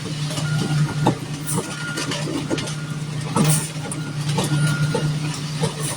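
Concrete mixer truck's diesel engine running steadily at high throttle to spin the drum and discharge the last of the load down the chute, with scattered knocks and scrapes.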